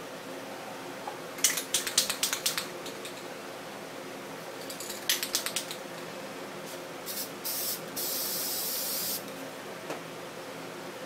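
Aerosol spray-paint can spraying in quick short puffs, two rapid clusters of them, then one steady burst of about a second near the end, over a faint steady hum.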